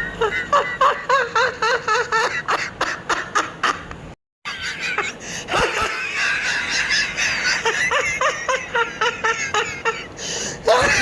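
Rapid, high-pitched laughter in quick repeated bursts, broken by a short cut to silence about four seconds in.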